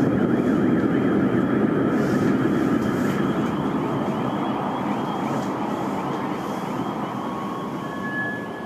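Low, rushing rumble that slowly dies away, the rolling aftermath of a distant explosion in a city. Faint steady high tones come in near the end.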